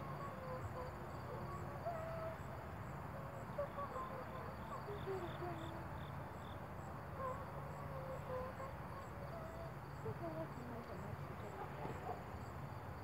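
Crickets chirping in an even rhythm, about two to three chirps a second, over a steady low background with faint distant voices.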